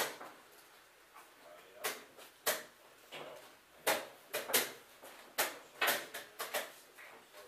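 An irregular run of about a dozen sharp clicks and knocks, some in quick pairs, in a small room.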